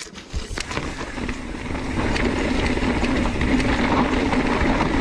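Mountain bike rolling along a dirt trail: tyre and rattle noise that starts about half a second in, builds as it picks up speed, then runs steadily.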